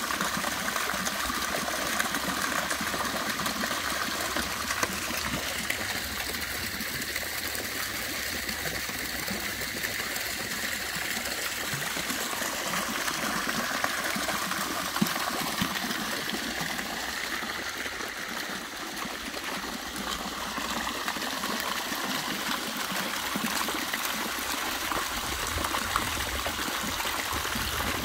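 Small fountain jets splashing steadily back into a shallow pool, a continuous rush of falling and splashing water.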